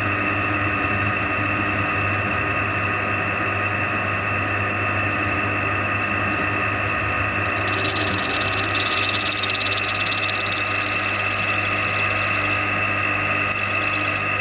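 Machine-tool motor running steadily while drilling small hinge parts, a constant hum with several steady tones. A higher hiss joins about halfway through for several seconds.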